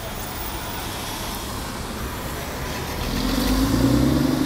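Road traffic moving through an intersection; about three seconds in, a vehicle passes close by, its engine note rising as it accelerates.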